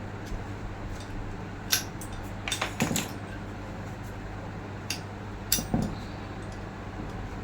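Sharp metal clinks and taps of steel parts being handled during reassembly of a forklift steering hydraulic cylinder, with a cluster of knocks about three seconds in and another near six seconds, over a steady low hum.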